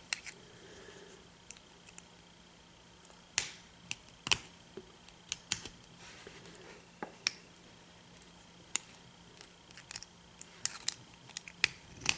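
Scattered small metallic clicks and light scrapes of tools working at the circlip on a padlock's lock core to pry it off, with two sharper clicks a few seconds in and a quick run of clicks near the end.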